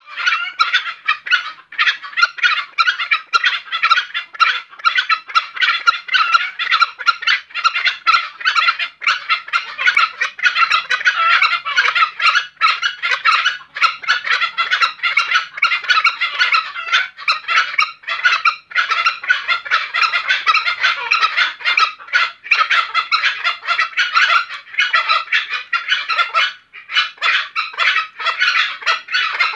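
Green junglefowl calling in the breeding season: a continuous run of rapid calls, dipping briefly a little before the end.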